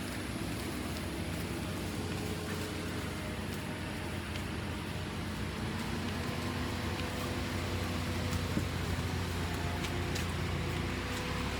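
Steady low hum of vehicle engines and road traffic, running evenly without a break.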